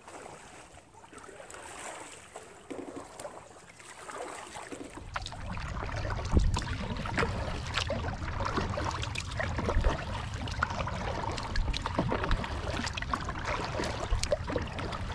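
Water splashing and trickling from paddle strokes as a sit-on-top kayak is paddled out over calm water, with a few light knocks. A low rumble comes up about five seconds in.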